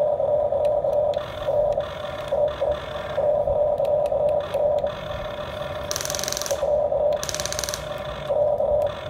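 Small electric gear motors of a Huina radio-controlled excavator whining in short stop-start bursts as the boom and bucket move. Two brief higher, buzzier bursts come about six and seven and a half seconds in.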